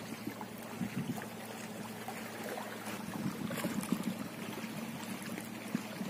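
Shallow water lapping and trickling among shoreline rocks, a steady wash with small irregular splashes, over a steady low hum.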